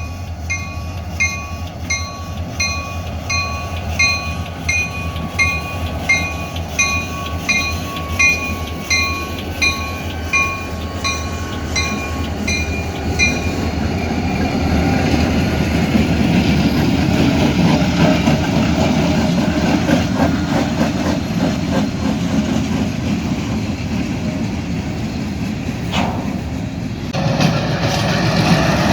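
Railroad crossing bell ringing at a steady beat of about two strokes a second, stopping about halfway through. A train rumbles past with its wheels clattering on the rails, louder in the second half.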